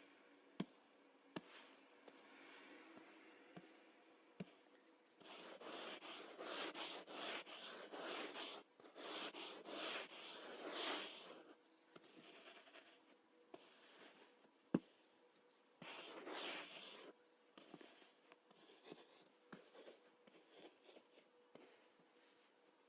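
Kinetic sand being worked by hand, heard faintly: a soft scratchy rustle that swells over several seconds in the middle and again briefly later, with a few sharp light clicks in between.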